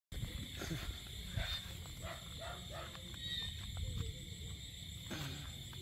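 Steady high-pitched drone of night insects, with short low calls and a few faint clicks over it.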